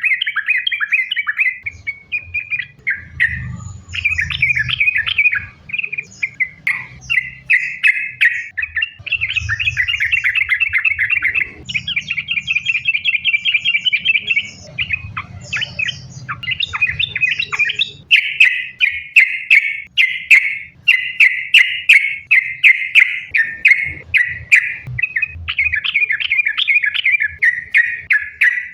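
Yellow-vented bulbul (trucukan) singing in rapid, chattering phrases strung one after another almost without pause, the continuous 'sambung ropel' song of a bird in full voice.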